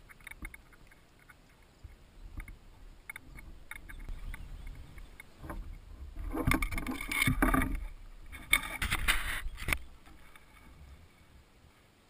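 Handling noise from a freshly caught pike: scattered small clicks, then two loud bursts of rustling and knocking, about six and about eight and a half seconds in, as the fish is lifted and held in the boat.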